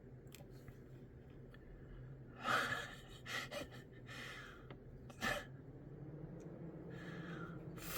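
A man's stifled laughter: a few short, breathy snorts and exhalations through the nose, starting a couple of seconds in. A faint steady low hum runs underneath.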